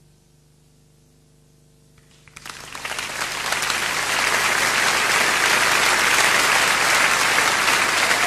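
The band's last sustained note fades out, then about two seconds in a concert audience breaks into applause that swells quickly into loud, steady clapping.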